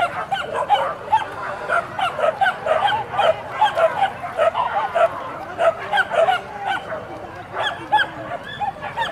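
Boar-hunting dogs yelping in an overlapping chorus, several short high yelps a second without pause.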